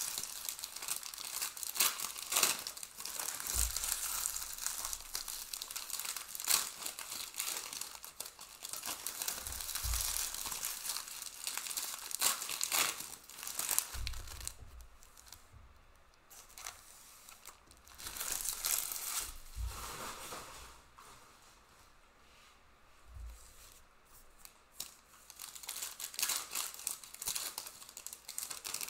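Foil wrappers of Panini Prizm Premier League trading-card packs crinkling and tearing as packs are ripped open and the cards handled, in quick irregular crackles. A few soft thumps, as of card stacks set down on the table, come through now and then.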